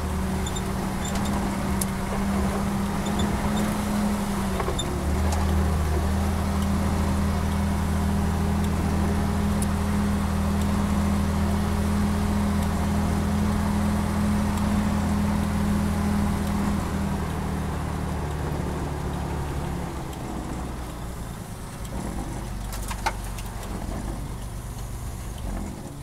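Chrysler M37CDN army truck's 251 flathead six running steadily under way, heard from inside the cab. The engine note changes about five seconds in, then eases off and falls quieter around twenty seconds in, with one sharp click near the end.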